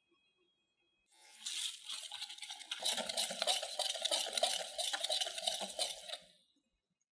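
A wire whisk rapidly beating thick chocolate-banana batter in a glass bowl: a fast, wet clicking of the wires against the glass. It starts about a second in and stops shortly before the end.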